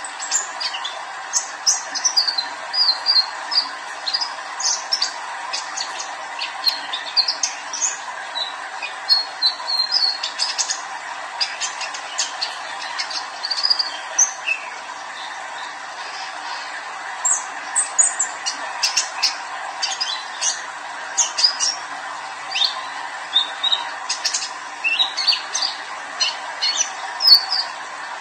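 Young male sunbird, the cage bird known in Indonesian bird-keeping as kolibri ninja, singing in a run of rapid, high chirps and twitters, with a short pause about halfway through. A steady background hum runs underneath.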